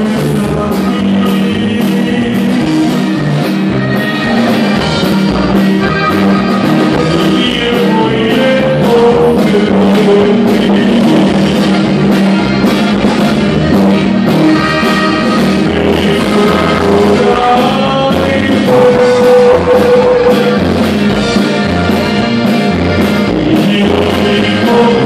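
A live band playing a song: a button accordion carrying the melody over guitars, bass and a steady drum beat.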